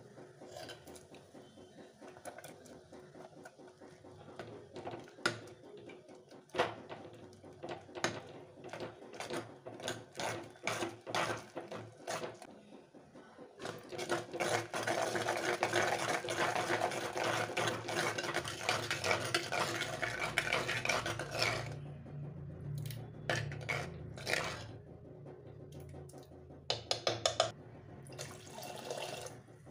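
A steel ladle knocks and scrapes against a clay pot while tomatoes and chopped greens stems are mashed in water, with a dense stretch of sloshing and scraping midway. Water is poured into the pot near the end.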